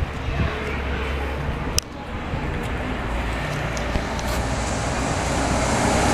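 Street traffic noise, a steady rumble and hiss that grows louder toward the end as a vehicle draws near, with a sharp click about two seconds in.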